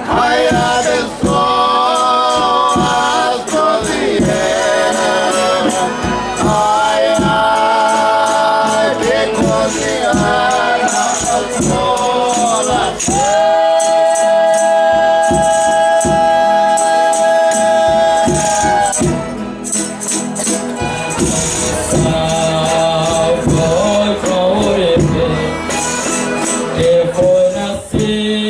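Folia de Reis ensemble singing a devotional verse in several voices over steady hand percussion, with one long held chord about halfway through that lasts some six seconds.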